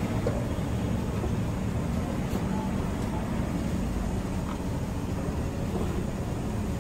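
Steady low rumble of background noise, even in level throughout, with faint voices now and then.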